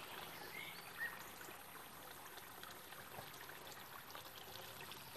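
Quiet outdoor garden ambience: a faint steady hiss, with a couple of short, faint high chirps about a second in.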